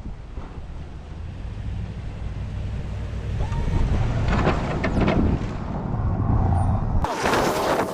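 A vehicle engine running low and steady under wind noise on the microphone. About seven seconds in, the sound cuts abruptly to a brighter rushing noise.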